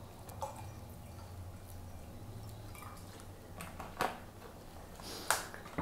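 Vinegar trickling faintly from a plastic bottle into a glass jar of water, with a few light clicks of the bottle and jar being handled, over a low steady hum.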